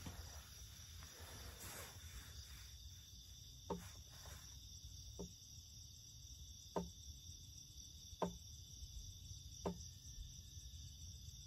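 Faint chorus of night crickets chirring steadily. Five short, sharp knocks come at even intervals about a second and a half apart.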